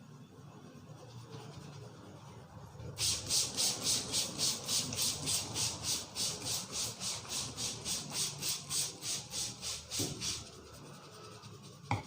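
Hands rubbing briskly through hair and over the scalp in a head massage: a fast, even run of hissy strokes, about three and a half a second, that starts about three seconds in and stops shortly before the end. A single sharp click comes right at the end.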